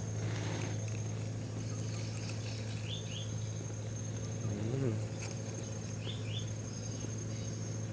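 Crickets and other insects keep up a steady high trill that breaks off now and then, over a steady low hum. A short double chirp comes twice, and a brief voice-like sound is heard a little past the middle.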